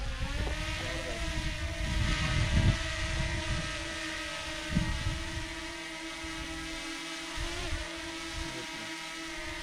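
DJI Mini 2 quadcopter's propellers spinning with a steady high whine, dipping slightly in pitch at the start and then holding level. Wind buffets the microphone with low rumbling gusts.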